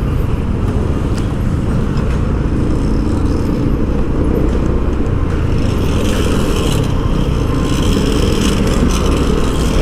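A road vehicle on the move, heard from aboard: steady engine and road noise with a heavy low rumble.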